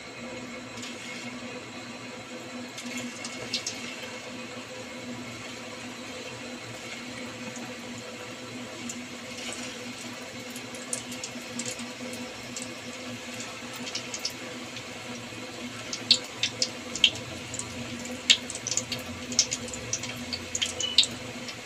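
Wheat-flour gulab jamun dough balls deep-frying in hot oil in an aluminium kadai: a steady sizzle, with sharp crackles and pops that grow more frequent in the last few seconds.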